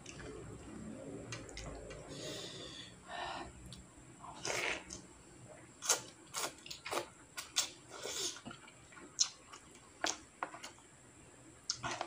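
Slurping instant noodles and soup broth from a plastic spoon, in a run of short wet bursts and mouth smacks, with sharp clicks of the spoon against the plastic tray.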